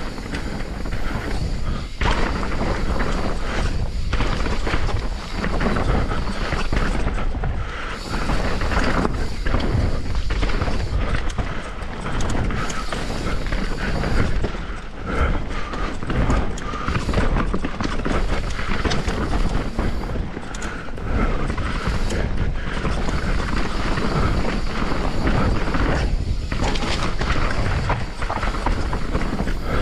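Mountain bike descending a rough technical trail, heard from a chest-mounted GoPro: a steady rush of wind noise on the microphone with constant knocks and thuds as the tyres and frame bounce over rocks and roots.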